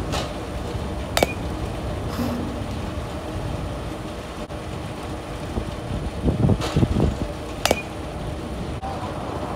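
Softball bat hitting machine-pitched softballs twice, about six and a half seconds apart, each a sharp crack with a short ring. A steady low rumble runs underneath.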